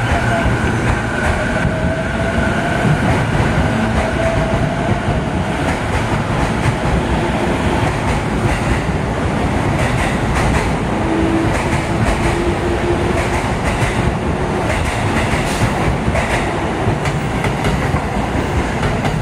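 A Keihin-Tohoku Line E233 series electric train accelerating away from a station, with a faint rising motor whine over a steady rumble. Clicks from the wheels over rail joints come through in the second half.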